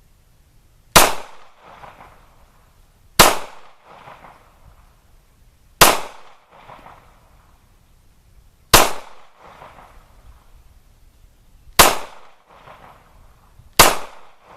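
Six single pistol shots from a Ruger LC9 9mm firing hand-loaded rounds, spaced two to three seconds apart. Each sharp crack trails off in a fainter echo within about a second.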